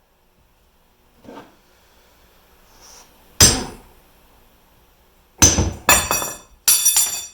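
Hard metal objects striking and clanking with a bright ringing after each hit: one loud strike about midway, then a quick run of about four clanks near the end.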